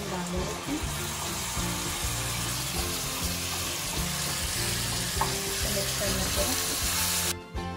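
Sliced potatoes and chopped tomato sizzling in hot oil in a pan, a steady hiss that cuts off suddenly near the end. Background music plays underneath.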